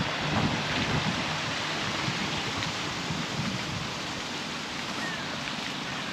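Steady hiss of rain falling, with a low rumble of wind buffeting the microphone that is strongest in the first second and then eases.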